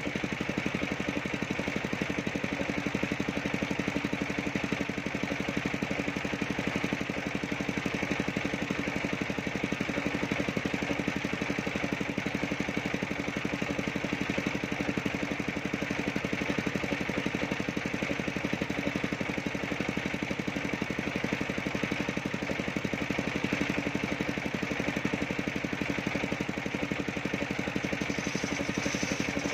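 Homemade engine-driven circular sawbench running steadily as its blade rips lengthwise through a coconut-wood plank, the engine's even pulsing under the hiss of the cut.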